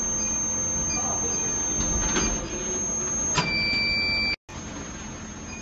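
Induction forging machine running with a steady high-pitched whine over a low electrical hum. About three and a half seconds in, a click is followed by an electronic beep lasting about a second. The sound then cuts out for an instant and returns quieter.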